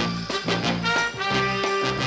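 Instrumental music with a swing feel, short held chords repeating in a steady rhythm.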